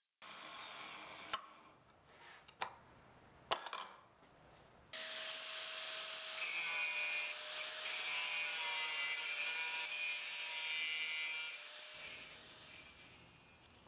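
Makita angle grinder with an abrasive cutoff wheel cutting through 1075 high-carbon steel, a hissing grind over the motor's steady whine. A short cut at the start is followed by a few clicks, then a longer, louder cut from about five seconds in that fades out near the end.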